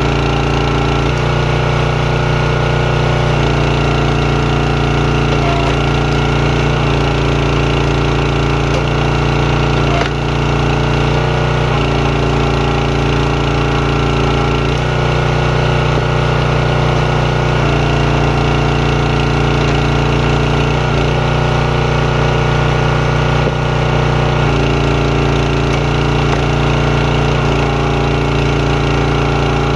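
Champion 27-ton hydraulic log splitter's small gas engine running steadily, its note shifting in steps every few seconds as the hydraulic ram loads up and releases while splitting firewood.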